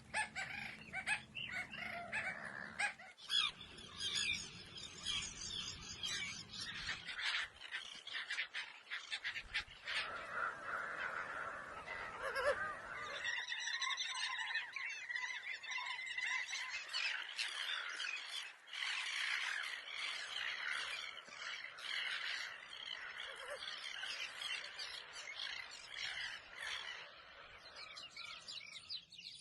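Many small birds chirping and calling at once, a dense overlapping chatter of short chirps and trills.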